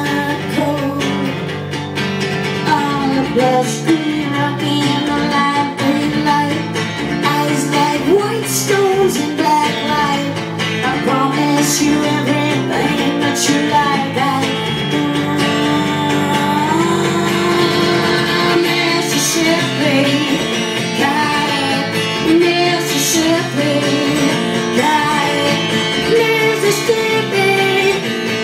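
A woman singing into a microphone while strumming an acoustic-electric guitar in a live solo performance.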